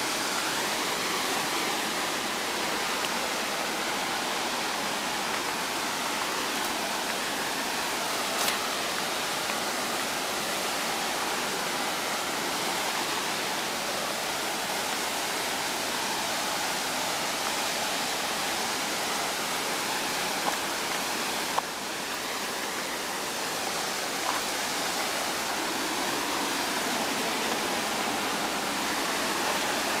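Steady rushing of a tall waterfall plunging down a cliff, heard as an even hiss of falling water, with a couple of faint clicks.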